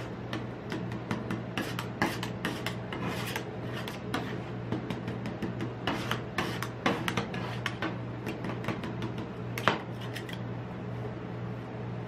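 Metal spatulas scraping, chopping and tapping on a frozen steel plate as rolled ice cream mixture is worked and spread flat. There are quick rasping scrapes and clicks throughout, thinning out near the end.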